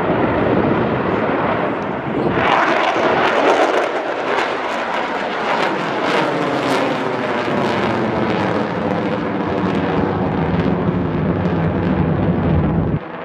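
F-35 Lightning II fighter jet's single afterburning turbofan engine, a loud jet roar as it passes and climbs, with a pitch pattern sliding steadily downward through the middle. The sound cuts off suddenly near the end.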